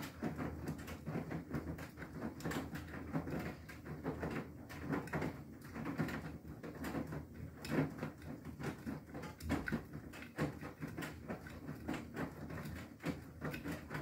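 Beko WTK104121W front-loader's drum tumbling a wet wash load: water sloshing and clothes flopping in irregular splashes over the low hum of the drum motor.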